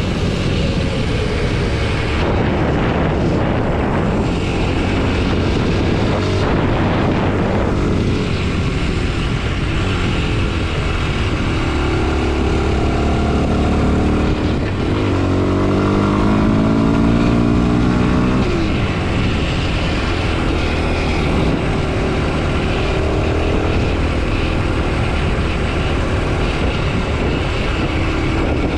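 Kawasaki KLX 230 SM's single-cylinder four-stroke engine running under way, its pitch rising and falling with the throttle and climbing steadily for a few seconds about halfway through as the bike accelerates. Wind noise rushes over the microphone throughout.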